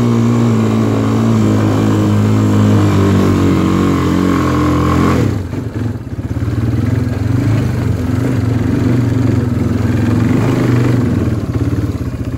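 Quad bike (ATV) engine running hard under throttle for about five seconds, its pitch sinking a little. Then the sound changes abruptly to a lower, evenly pulsing engine note.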